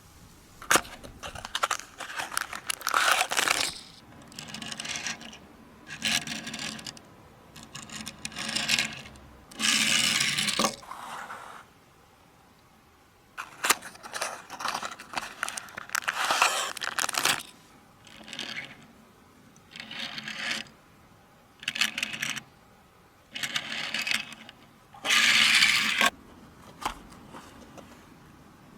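Toy packaging being handled and opened: repeated bursts of rustling and scraping, with sharp clicks in between.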